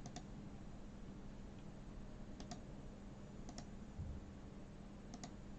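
Faint clicking at a computer: a few sharp clicks, some in quick pairs, spread through the stretch over a low steady hum.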